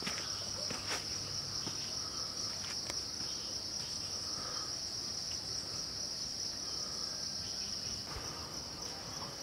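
A steady, high-pitched insect chorus, such as crickets or cicadas, droning without a break, with a few faint clicks.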